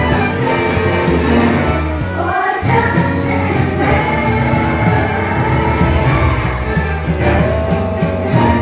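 Show music with singing voices over a steady beat; after a brief drop in the bass about two and a half seconds in, the sung melody comes to the front.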